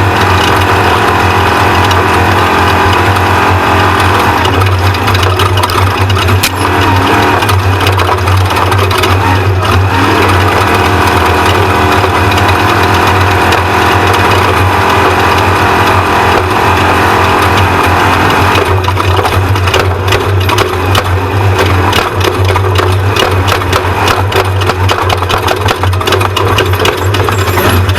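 Off-road race truck's engine running hard, its pitch shifting several times, with steady rattling and knocking from the truck that comes thicker in the later part.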